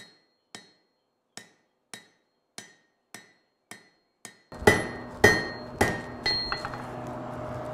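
Hand hammer striking a red-hot steel bar on an anvil in a steady rhythm of about two blows a second, each blow ringing briefly. This is hand forging: drawing out and rounding the stem of the bar. About halfway through, a steady hum and rush comes in under a few louder blows.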